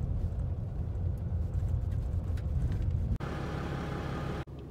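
Vehicle driving along a gravel road: a steady low road and engine rumble. An edit about three seconds in changes it abruptly to a lighter rumble with more hiss, and it cuts out briefly near the end.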